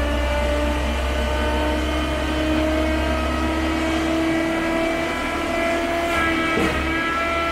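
Construction mortar pump's motor running steadily: a deep hum under a whine whose pitch drifts slowly, shifting a little near the end.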